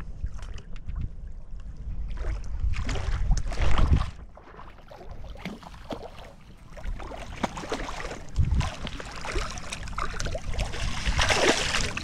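Hooked landlocked Chinook salmon splashing and thrashing at the surface in shallow water as it is brought to the landing net, in irregular bursts that are loudest near the end. Wind buffets the microphone as a low rumble underneath.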